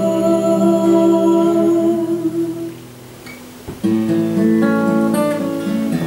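Steel-string acoustic guitar chords ringing under a held vocal note that dies away about three seconds in. After a short lull the guitar is strummed again.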